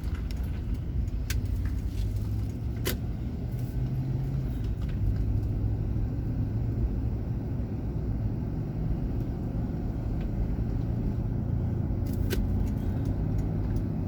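Car stopped at a red light, heard from inside the cabin: a steady low engine and road rumble, with a few sharp clicks.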